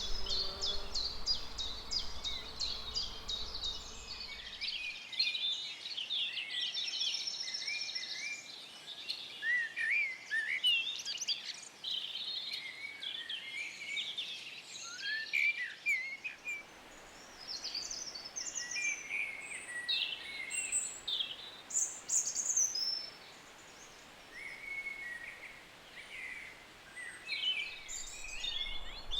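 Several songbirds singing and calling at once, overlapping chirps, quick trills and short whistled glides. A low buzzing hum sounds under them for the first few seconds.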